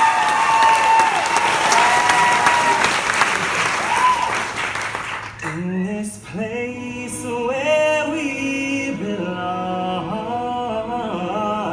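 Theatre audience clapping and cheering; about five seconds in the applause cuts off abruptly and the cast sings together in several-part harmony.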